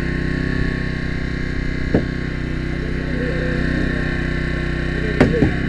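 Hydraulic power unit for Jaws of Life rescue tools running steadily, with a sharp knock about two seconds in and two more close together near the end.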